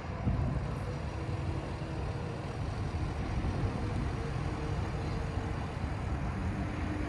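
Pickup truck towing a gooseneck stock trailer, engine running as it pulls slowly forward, with a steady low rumble.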